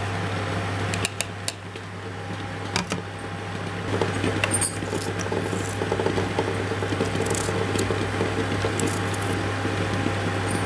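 Ground paste tapped and scraped out of a steel mixer-grinder jar into a bowl, with a few sharp knocks. Then a small knife slices onion against a steel plate, making soft cutting sounds and light clicks, over a steady low hum.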